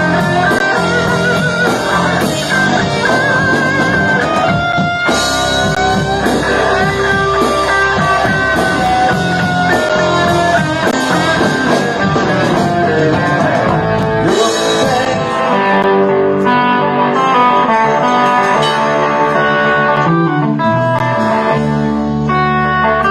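Live rock band with a distorted electric guitar lead: a Gibson Flying V on its Seymour Duncan High Voltage bridge pickup through a Mesa/Boogie Mark V:35 amp, playing sustained notes with vibrato and bends over bass guitar and drums.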